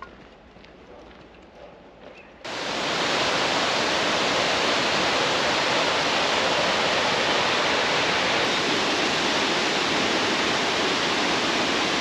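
Quiet forest ambience with faint footfalls. About two and a half seconds in, it cuts suddenly to the loud, steady rush of water, which carries on.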